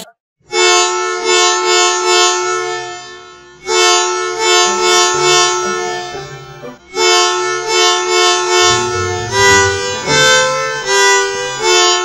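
A musical bus horn playing its 'tu tututu' tune, slowed down: steady two-note horn tones sounding in short repeated blasts. It comes in three phrases, with brief breaks about three and a half and six and a half seconds in.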